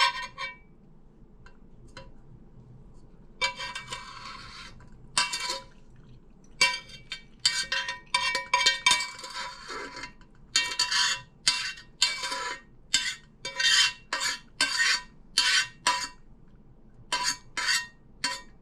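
A spoon scraping and clinking against a strainer and pot as it presses the juice out of boiled elderberries. After a quiet start it begins about three seconds in with a longer scrape, then goes on in a run of quick, ringing metallic knocks and scrapes, roughly one or two a second.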